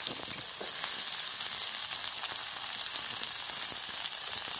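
Sliced onion, with garlic and cumin seeds, sizzling in hot oil and ghee in a kadai: a steady frying hiss with scattered small crackles.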